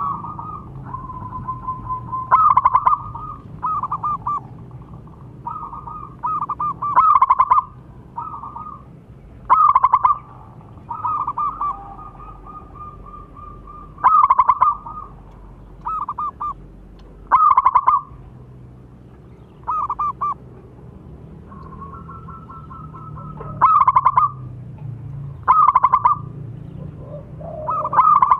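Zebra dove (perkutut) cooing loudly: short bursts of quick, rolling coos repeat every one to three seconds, with softer trills between them.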